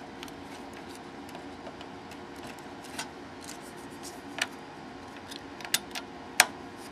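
Scattered small clicks and taps from ribbon cables being handled and pushed into their connectors inside a laser printer, over a steady low hum. Two sharper clicks come near the end.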